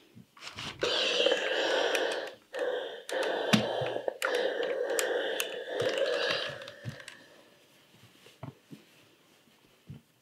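Steam iron hissing in three bursts of steam while pressing a knit neckline over a tailor's ham, followed by a few light knocks and taps near the end.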